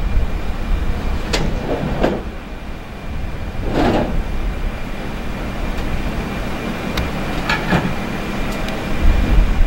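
Service truck's engine running steadily, with a few dull knocks and clunks as heavy truck tires are handled and loaded onto its rack; the loudest knock comes about four seconds in.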